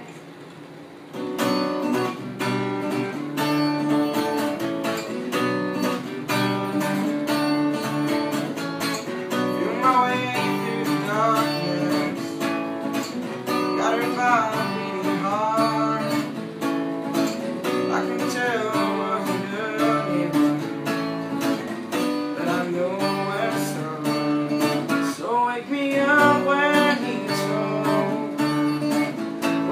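Cutaway acoustic guitar strummed in steady chords, starting about a second in. A young man sings along from about ten seconds in.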